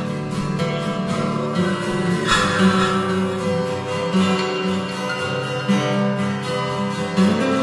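Music: an instrumental passage with chords struck about every two seconds and left to ring over held notes.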